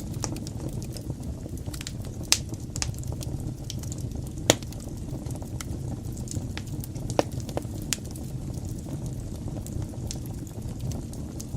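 Fire burning in a fireplace: a steady low rumble of flames with sharp crackles and pops scattered irregularly through it, the loudest pop near the middle.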